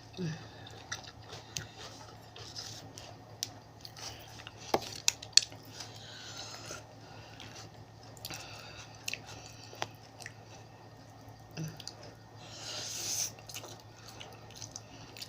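Close-up eating of a spicy seafood salad: wet chewing and mouth sounds, with sharp clicks and crunches now and then.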